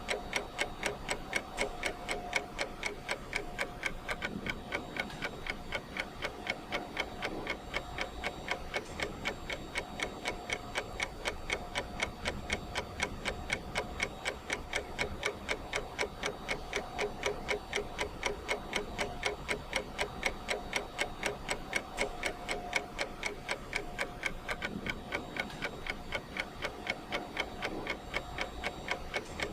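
Clock ticking: a steady run of evenly spaced ticks from a countdown timer's ticking sound.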